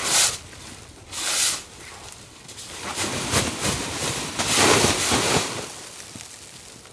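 Tarp fabric rustling as it is handled and shaken, with snow swishing off it. Several short swishes, then a longer, louder spell of rustling about three to five seconds in.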